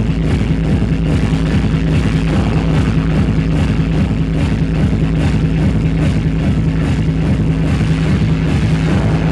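Loud electronic dance music played over a club sound system, with a steady, held bass note under a continuous driving beat.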